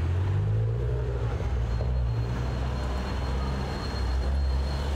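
Street traffic with a vehicle engine running close by: a steady low rumble.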